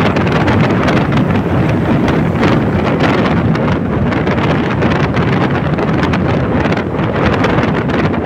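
Steady, loud wind rush on the microphone of a scooter ridden at about 60 km/h, with the road and engine noise of the ride mixed in beneath it.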